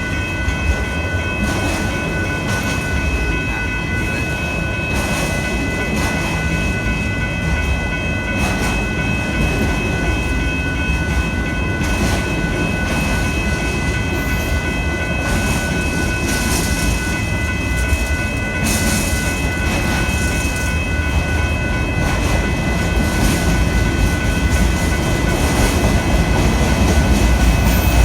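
Union Pacific auto train of autorack freight cars rolling past, wheels clicking over rail joints beneath a steady high-pitched ringing, growing a little louder near the end.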